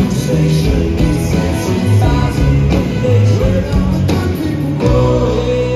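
Live band music from the audience: electric guitar and bass, with a male singer's voice through the PA.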